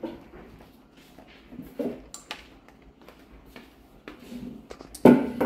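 Rough collie eating dry kibble from a stainless steel bowl: scattered crunches and clinks of kibble against the metal bowl, with a louder clatter of the bowl near the end.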